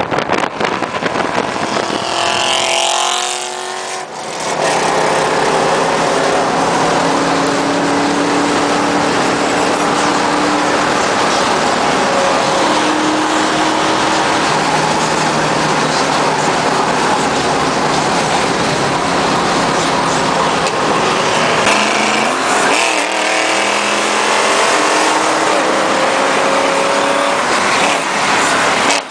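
V8 muscle cars accelerating on a freeway in exhaust pulls. One car sweeps past about two seconds in. Then comes steady loud engine, exhaust and road noise, with the engine's pitch climbing slowly several times as the revs rise.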